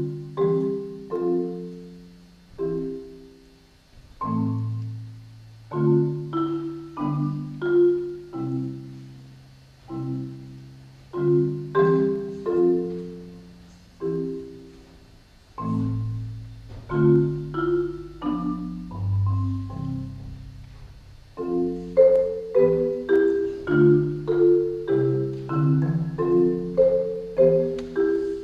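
Solo marimba played with mallets: chords of several notes struck about once a second, each ringing and dying away. About two-thirds of the way through, the notes come faster and closer together.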